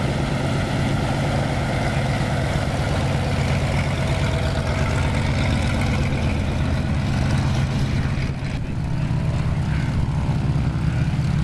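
The radial piston engines of a vintage twin-engine propeller aircraft running at low taxiing power: a steady, deep, throbbing drone. The note shifts slightly about eight seconds in as the aircraft turns away.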